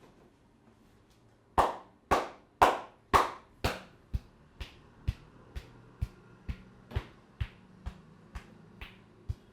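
Percussive massage: hands slapping the client's body in a steady rhythm of about two strikes a second, starting about one and a half seconds in. The first five slaps are the loudest and the rest are lighter.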